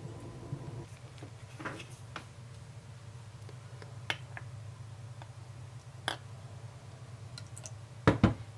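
Light taps and clicks from a glass cup and a plastic measuring scoop handled over a mixing bowl while mixing slime, with two sharp knocks close together near the end, the loudest, over a steady low hum.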